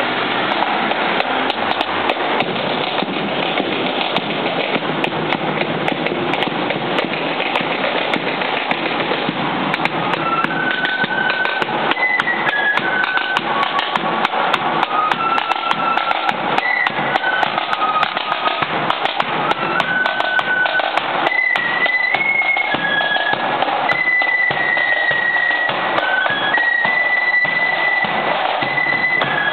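Marching flute-and-drum band: side drums and bass drum beating a march rhythm, with a high flute melody coming in about ten seconds in.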